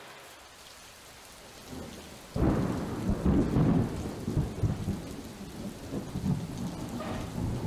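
Rain falling steadily, then a sudden loud clap of thunder about two seconds in that goes on as a long, uneven rumble.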